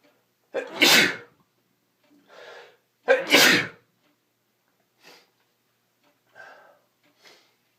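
A person sneezing twice from hay-fever allergies: two loud sneezes about two and a half seconds apart, each with a short intake before it, followed by fainter short breathy sounds.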